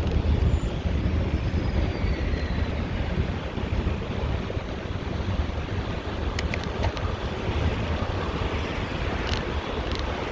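Wind buffeting the microphone on a moving bicycle, a steady low rumble with road noise under it. A few short sharp clicks come past the middle and again near the end.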